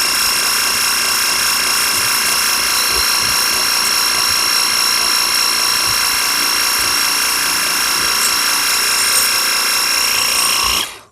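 Harbor Freight battery-powered pressure washer running with its 0-degree nozzle, a steady high whine from the pump motor over the hiss of the water jet, cutting off suddenly near the end as the trigger is released.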